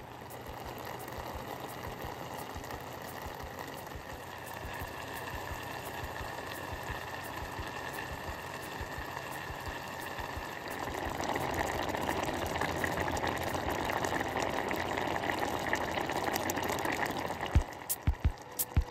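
Diced pineapple and sugar boiling in a stainless steel pot as jam, a steady bubbling that grows louder about 11 seconds in as it comes to a full boil. A few sharp clicks come near the end.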